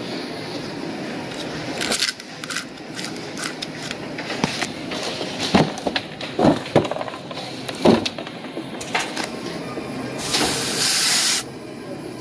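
Scattered knocks, clicks and cardboard handling noises while a refrigerant jug is being handled. Near the end comes a sharp hiss lasting about a second: R-407A refrigerant escaping at the charging hose and gauge manifold connection.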